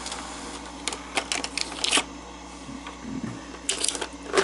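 Clusters of sharp mechanical clicks and clacks, one group about a second in and another near the end, over a steady low hum.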